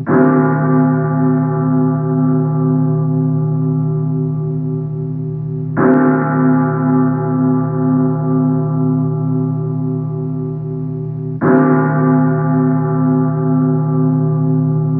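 Church bell tolling slowly: three strikes about six seconds apart, each ringing on with a pulsing, wavering hum that is still sounding when the next strike lands.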